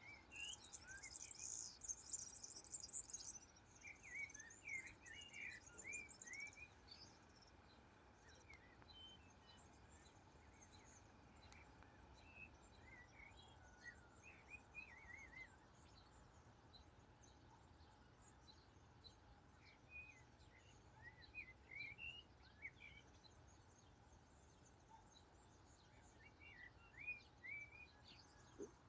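Faint songbirds chirping in short scattered bursts of high calls, with a dense, fast high-pitched trill in the first few seconds, over a steady faint low background hum.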